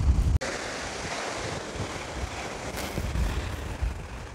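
Surf washing onto a sandy shore, a steady hiss of breaking waves, with wind gusting on the microphone; the wind rumble is heaviest in the first moment and cuts off abruptly, then returns in lighter gusts.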